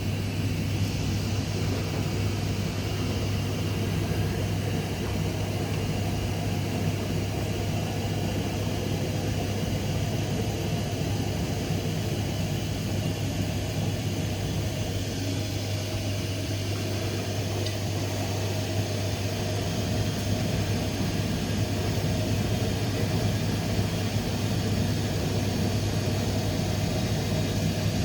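Rex-Electrolux RJ 7160 TA washing machine running steadily: a low motor hum under a rushing, whooshing noise from the turning drum, getting slightly louder in the last third.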